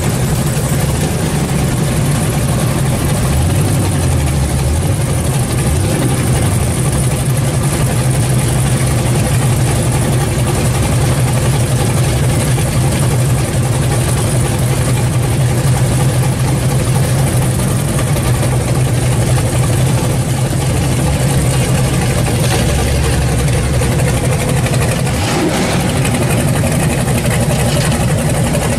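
Chevrolet Chevelle SS's V8 idling with a low, steady exhaust note as the car creeps along at walking pace.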